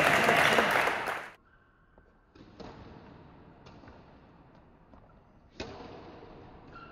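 A burst of spectators' voices and cheering that cuts off about a second in, then badminton rackets striking a shuttlecock in a rally: three sharp pops a second or two apart, the last and loudest an overhead shot near the end, ringing in the hall.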